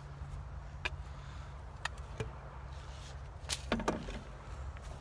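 A few short, sharp clicks and knocks, loudest in a cluster near the end, from someone handling things and shifting while kneeling by a garden bed. A steady low rumble runs underneath.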